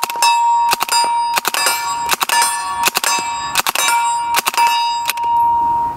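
Suppressed 9mm submachine gun firing subsonic rounds at a steel target plate: sharp reports in closely spaced pairs, about three pairs every two seconds, with the plate ringing a clear steady tone through the string. The firing stops about five seconds in and the plate rings on briefly.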